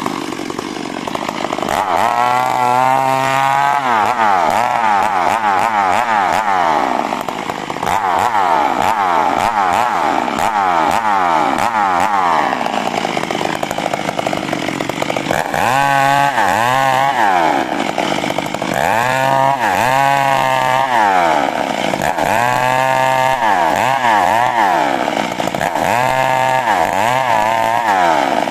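Two-stroke chainsaw sawing coconut palm wood. The engine is held at high revs through long cuts, then in the second half it rises and falls repeatedly, roughly every two seconds.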